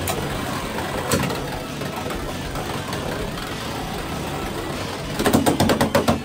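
Two Beyblade X spinning tops whirring steadily on a plastic stadium floor. There is a single sharp clack about a second in, and a quick run of about ten clattering hits near the end.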